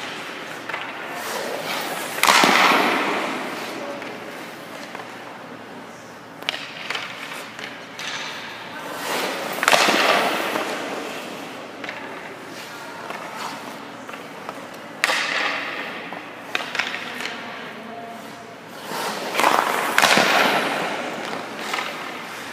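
Ice skates and goalie leg pads scraping and sliding across the ice in four loud bursts. Each starts with a thud and trails off over a second or two, with a few lighter scrapes between.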